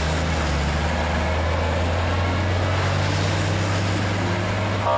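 Motor vehicle engine running steadily with a low hum and road hiss, its pitch creeping up slightly as it drives.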